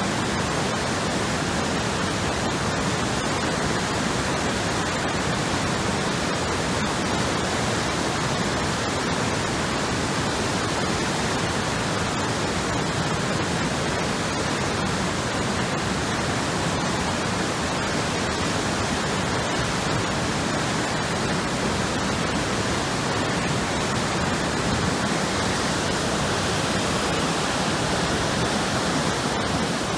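Steady, unbroken rush of a river in flood, its high fast water swollen by typhoon rain.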